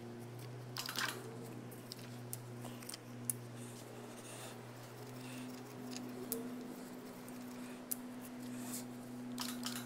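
Electric hoist on a jib crane running steadily as it lifts a lathe's compound rest: a low, even hum. Light metallic clicks and knocks come through as the compound shifts in the slings.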